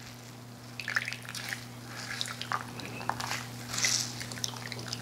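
Juice dripping and spattering into a small bowl as shredded zucchini is wrung out in cheesecloth, with wet squelches from the cloth. It is an irregular patter that starts about a second in and is thickest near four seconds.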